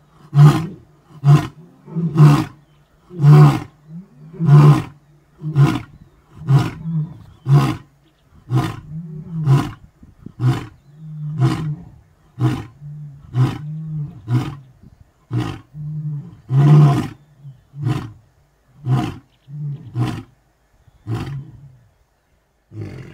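Male lion roaring: a long series of short, deep grunting roars, about one a second, growing fainter and a little more spaced near the end.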